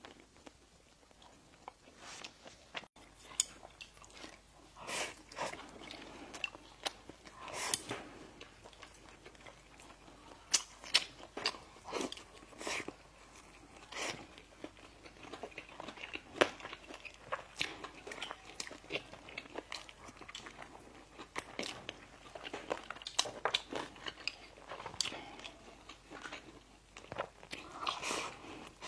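Close-miked eating: biting into and chewing bakery bread and pastry, with many sharp, irregular crunchy clicks and soft mouth noises starting about three seconds in.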